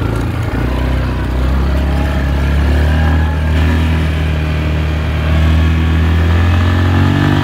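Yamaha 4x4 ATV's single-cylinder engine running under way as the quad is ridden and turned, its pitch rising a little about two seconds in and again near the end. The motor sounds good.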